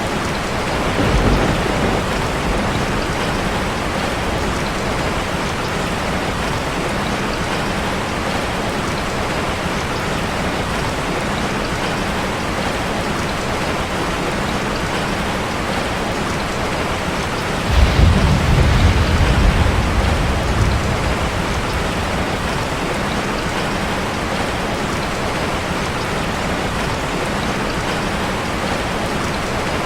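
Steady rain falling, with two low rumbles of thunder: a brief one about a second in and a longer one about 18 seconds in that lasts about three seconds.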